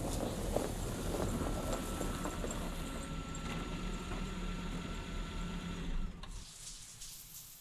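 A steady mechanical hum with a low drone and faint high whining tones, which stops suddenly about six seconds in, leaving a quieter hiss with faint ticks.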